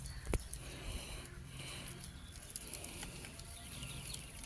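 Faint outdoor background with distant birds calling and a single sharp click about a third of a second in.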